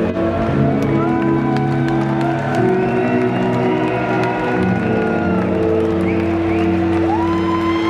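Live electronic music: long sustained synthesizer chords with high notes sliding up and down in pitch over them.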